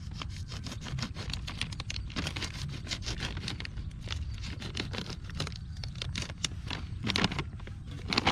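A plastic packet of seed corn being opened and handled: a dense run of crinkling and crackling with many small clicks.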